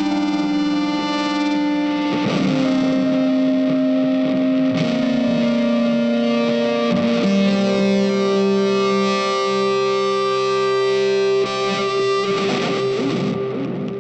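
Background music with distorted electric guitar: long held notes that change every couple of seconds.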